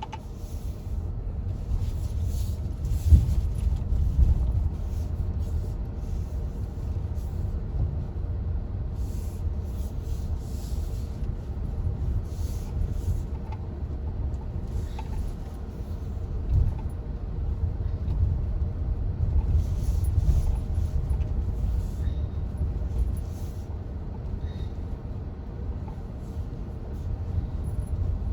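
MG HS SUV driving over a rough track: a steady low rumble with a sharp knock about three seconds in.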